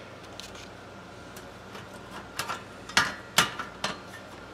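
Sharp clicks and snaps of a sheet-metal shield being worked off the frame of an LCD panel. The clicks are faint and scattered at first, and the two loudest come about three seconds in, followed by a few smaller ones.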